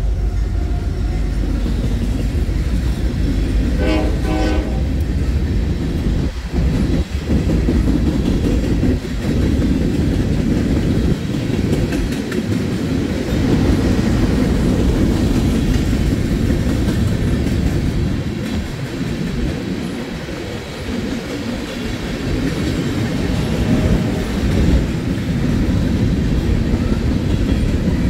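Norfolk Southern manifest freight train rolling past: a steady, loud rumble of freight cars with wheels clacking over the rail joints. A brief horn note sounds about four seconds in.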